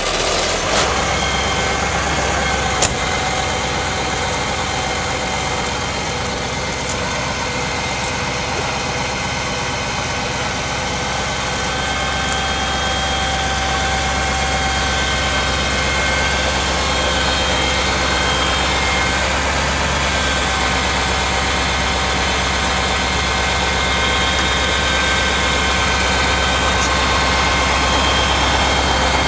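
Large truck-type engine running steadily at idle, a constant low drone with a few steady higher tones over it.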